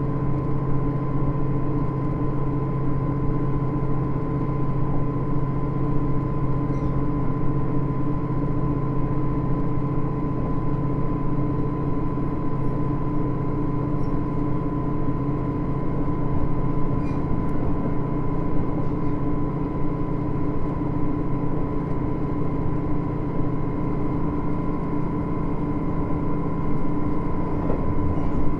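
KiHa 110 series diesel railcar under way at a steady speed: an unchanging engine drone with rolling rail noise, heard from inside the car, with a few faint clicks.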